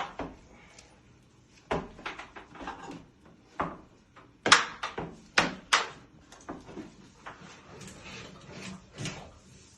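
Handling and work noises of DIY wiring: scattered sharp clicks and knocks, with a quick run of four louder taps about halfway through.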